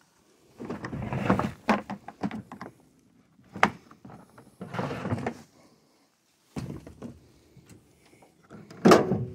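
Fishing gear being handled in a pickup truck bed: an irregular run of rustles, clatters and knocks of plastic items such as a cooler and a jug against the ribbed metal bed. A louder thunk comes near the end.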